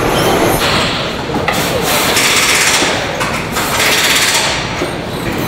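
Truck assembly-hall noise: a steady mechanical din with three bursts of hiss, about one, two and four seconds in.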